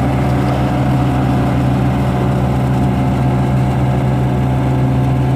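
Farm harvesting machine's engine running steadily at constant speed, a loud even hum with no change in pitch.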